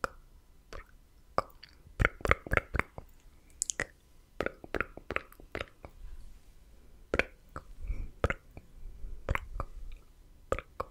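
Close-miked mouth sounds: slow, wet tongue clicks and lip pops ("tk tk"), coming in short irregular clusters with brief pauses between.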